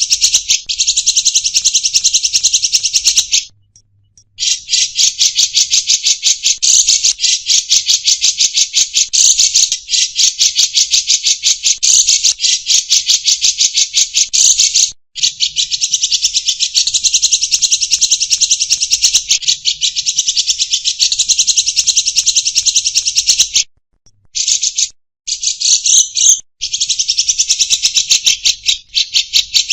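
Songbirds singing non-stop in loud, very rapid high-pitched trills, in long unbroken runs with a few short pauses.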